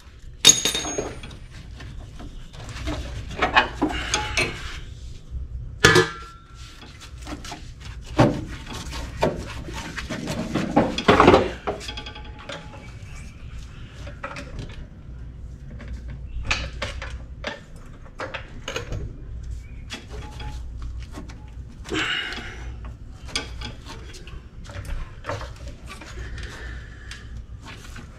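Hand tools clinking and clattering against metal under a VW Bay Window bus as its engine is being unbolted for removal. Scattered short metallic knocks and clinks, with a few longer scraping clatters, the loudest about eleven seconds in.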